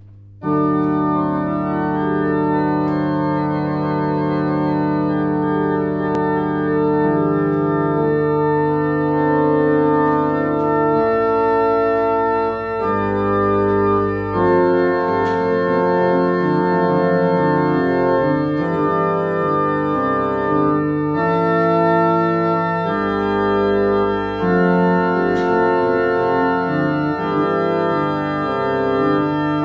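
Organ prelude played on an electronic keyboard with an organ voice: slow, sustained chords over a low held bass note, the chords changing every second or two. It starts about half a second in.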